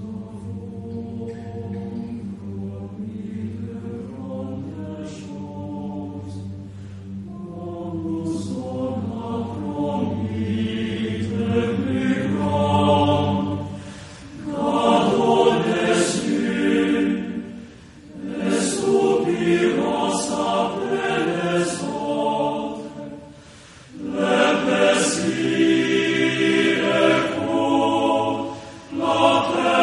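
Male-voice choir singing a cappella: a soft, sustained low chord for the first several seconds, then louder phrases, each broken by a brief pause about every four to five seconds.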